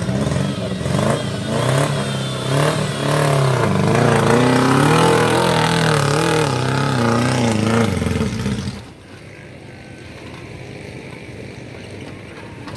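Off-road vehicle's engine revving hard, its pitch climbing and falling repeatedly under load, then dropping suddenly to a quieter, steady run about nine seconds in.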